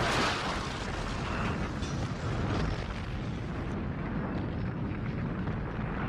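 Film sound effect of a starship explosion: a sudden blast at the start giving way to a steady deep rumble of fire and debris.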